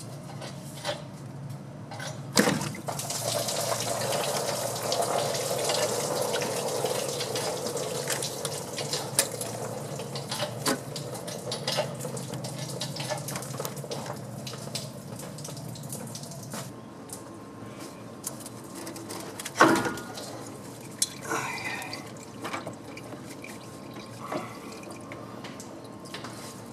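Metal clinks and knocks of a lifting chain being rigged to a 6.5 diesel cylinder head, with sharp knocks about two and twenty seconds in. A rushing hiss runs from about two seconds in until about sixteen seconds.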